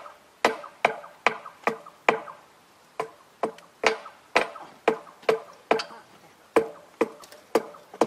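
Repeated hammer strikes on metal, about two or three a second, each sharp blow leaving a short ring. There are two brief pauses between runs of strikes.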